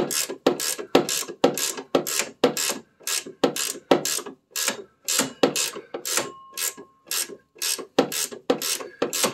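Husky flex-head ratcheting wrench clicking in quick, even strokes, about three a second, as it is swung back and forth to run a nut onto a car's rear shock absorber mounting bolt.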